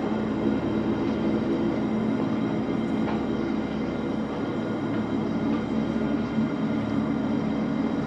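Dark ambient drone soundtrack: a steady low rumbling hum with held tones.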